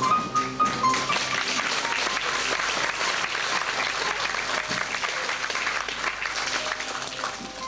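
Audience applauding, steady clapping that starts as the music ends and eases off near the end.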